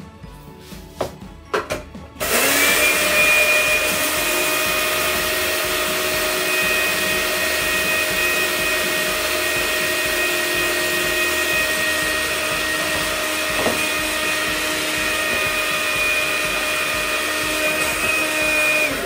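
Two small electric blade coffee grinders running together, grinding dry-roasted coriander seed: a steady motor whine over the noise of the seeds being ground. They start about two seconds in, after a few clicks of the lids going on, and cut off just before the end.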